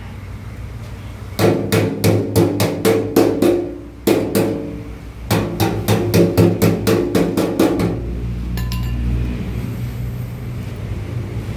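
Hammer rapidly tapping a steel patch plate against a metal fuel tank, about four or five ringing metallic blows a second. The patch is being beaten flush onto the tank for welding. The blows come in runs with brief pauses and stop about eight seconds in.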